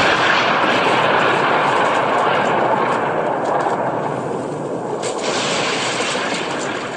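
Explosion sound effect: a loud wash of blast noise that slowly dies away over several seconds.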